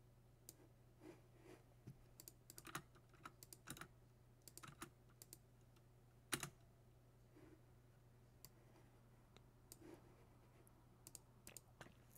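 Faint, irregular clicking and tapping of a computer keyboard and mouse, some clicks in quick runs, with one louder click about six seconds in, over a steady low hum.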